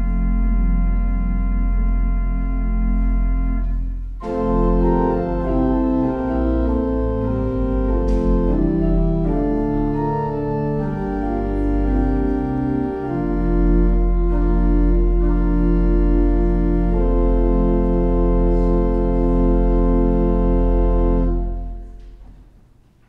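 Organ playing slow, sustained chords over a deep pedal bass, the final chord released near the end and dying away in the room's reverberation.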